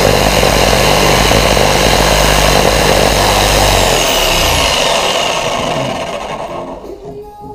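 Jigsaw cutting through plywood, running steadily at full speed and then falling away over the last two or three seconds.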